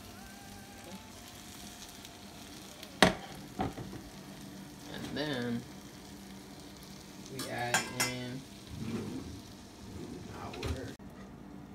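Vegetables sizzling in a hot cast-iron skillet while they are served out with tongs. A sharp clank of metal about three seconds in is the loudest sound, with a smaller knock just after and a couple of brief pitched scrapes later.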